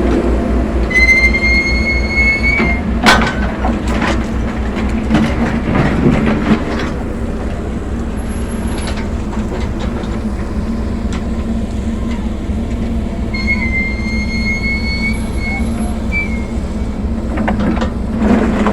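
Backhoe's diesel engine running steadily under load while digging. A long high squeal is heard about a second in and again around thirteen seconds in. Knocks and clanks come in the first several seconds and again near the end.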